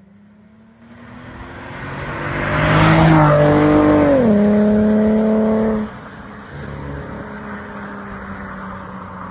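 A car drives past: engine and road noise build to a peak about three seconds in, then the engine note drops in pitch as it goes by. The level falls suddenly about six seconds in to a quieter steady hum.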